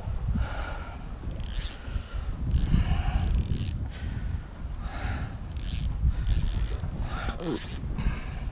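Fishing reel being cranked in about six or seven short spurts, each with a thin whine, over a low rumble of wind on the microphone.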